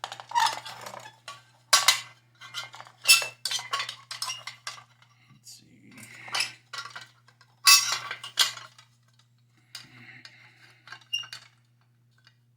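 Metal burner assembly of a gas water heater clinking, knocking and scraping as it is handled and worked back into place, with a string of sharp metallic knocks and a few louder clanks.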